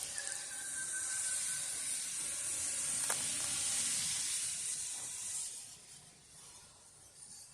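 Narrow-gauge steam locomotive venting steam: a steady high hiss that fades away after about five seconds, with a single sharp click about three seconds in.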